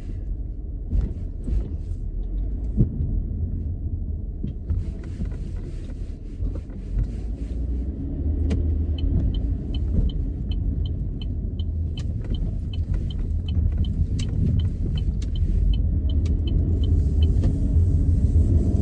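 Car driving, heard from inside the cabin: a steady low rumble of engine and road noise. About halfway through, a light high-pitched tick starts repeating about twice a second and runs for roughly eight seconds.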